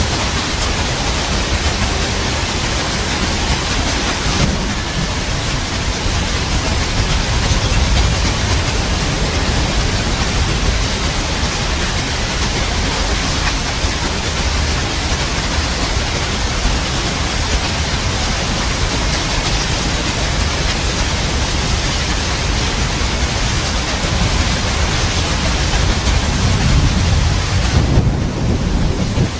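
Steady rain with a low rumble of thunder underneath. Near the end the rain's hiss briefly thins while the rumble carries on.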